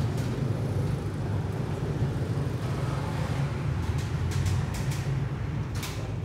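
Steady low rumble of background noise, with a few light clicks and taps about four to six seconds in.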